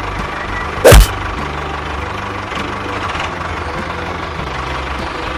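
Engine-like drone running steadily, with evenly pitched low tones, like a small tractor engine idling. About a second in there is a single very loud, short sound that drops in pitch.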